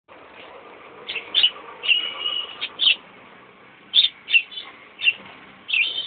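Small caged parrots chirping: about ten short, sharp chirps at irregular intervals, with one drawn-out note about two seconds in.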